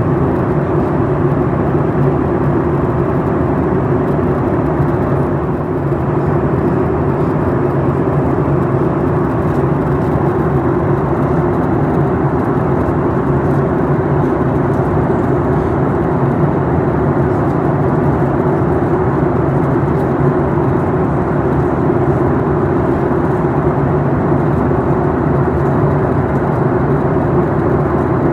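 Boeing 737 MAX 8 cabin noise in flight: a steady, unchanging roar of airflow and CFM LEAP-1B turbofan engines heard through the fuselage.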